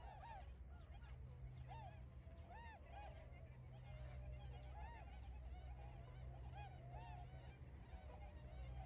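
A flock of Bewick's swans (tundra swans) calling: many short, arched calls overlapping one another without a break, over a steady low rumble.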